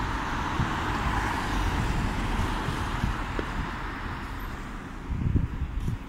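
Street traffic: the hiss of a passing car that slowly fades away, with a louder low rumble a little after five seconds.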